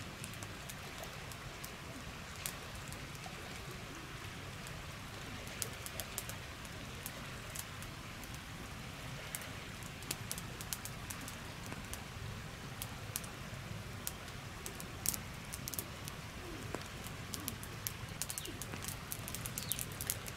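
Wood fire crackling with sharp pops, which come more often in the last few seconds, over the steady rush of a flowing river.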